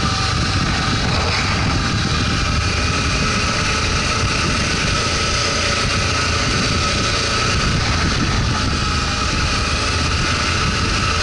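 Motorcycle engine running steadily while riding along a dirt track, an even rumble with a steady high whine over it.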